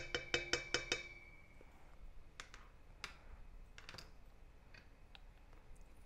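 A measuring spoon tapped rapidly against a stainless steel stand-mixer bowl, about six quick taps within the first second, the bowl ringing briefly after them. A few scattered lighter clicks and knocks follow.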